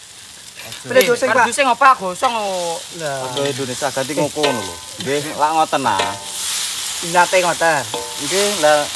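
Food sizzling in a metal wok as it is stirred and scraped with a metal spatula. Over it, a louder pitched sound like a voice glides up and down in repeated phrases for most of the time.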